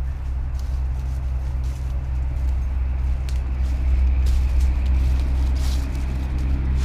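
Car engine running steadily, a low even hum.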